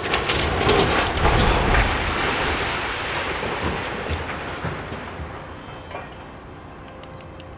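Industrial smokestack crashing to the ground during demolition: a loud rolling rumble of impact, with sharp cracks at the start, that swells over the first two seconds and dies away over the next few.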